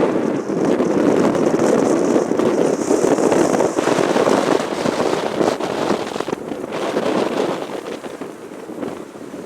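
Jet airliner flying low past, its engines making a loud crackling roar with a thin high whine early on, fading toward the end.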